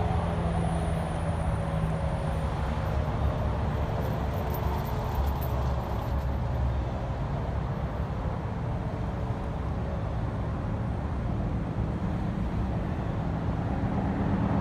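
An outdoor warning siren's tones, several at once, sag slightly in pitch and fade out over the first few seconds as it winds down. A steady low outdoor rumble runs underneath and remains the loudest sound.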